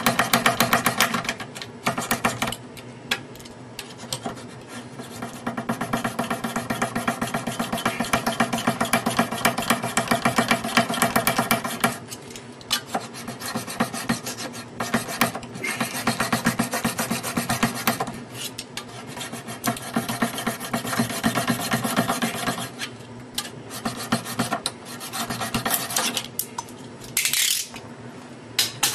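Utility knife blade sawing back and forth through glued wooden dowels, cutting them off: a fast, rasping scrape in long runs with short pauses between.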